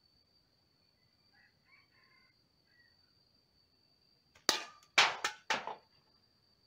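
A slingshot shot hitting a drink can on a tree stump and knocking it off: a sharp metallic hit, then three more quick clanks as the can falls and tumbles, all within about a second.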